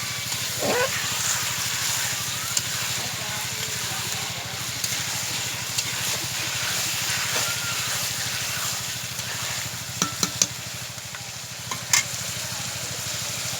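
Chicken and potato curry sizzling steadily in a pot while a spoon stirs it, with a few sharp clinks of the spoon against the pot late on.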